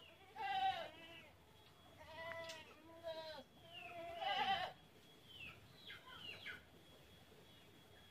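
An animal bleating again and again: four wavering calls in the first four and a half seconds, then two fainter ones around six seconds in.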